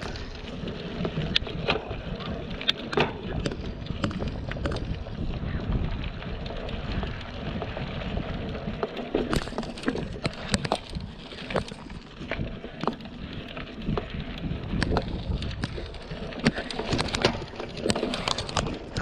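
Mountain bike rolling over a dirt and rock trail: tyres crunching over sand and stones, with frequent irregular clicks and knocks as the bike jolts over the rough ground, and a steady rumble of wind on the microphone.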